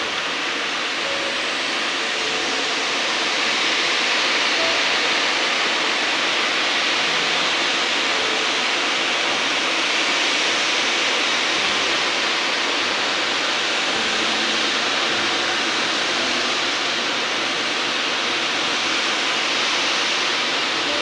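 A steady, even rushing hiss with no beat, no pitch and no sudden sounds.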